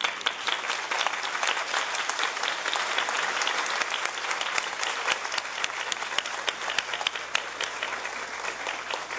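Audience applauding: many people clapping together, steady throughout and thinning out slightly near the end.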